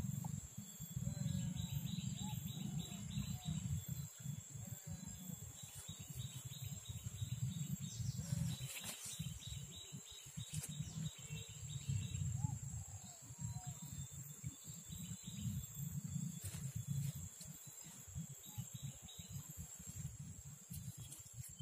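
Outdoor ambience with no speech: a steady high insect buzz, repeated runs of quick chirps and a few short bird calls, over an uneven low rumble.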